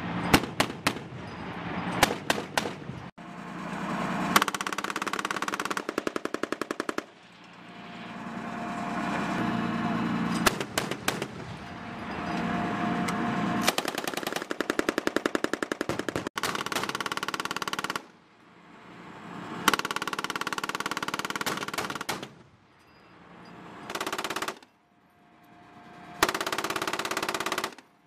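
Repeated bursts of automatic gunfire from weapons mounted on a LAV-25 armored vehicle, a machine gun among them, in several runs of rapid shots broken by short gaps.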